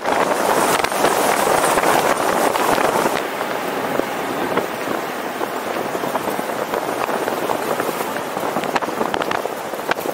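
Wind rushing over the microphone of a camera mounted on a moving car, mixed with road noise and scattered crackles; the hiss eases a little about three seconds in.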